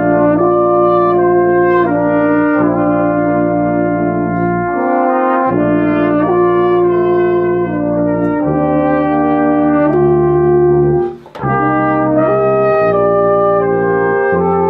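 Brass ensemble playing slow, sustained chords, from trumpets down to low brass. The chords change every second or two, and there is a brief break for breath about eleven seconds in.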